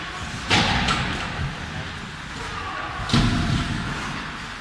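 Ice hockey rink boards struck hard twice: a bang about half a second in with a smaller knock just after, and another about three seconds in, each echoing briefly in the arena.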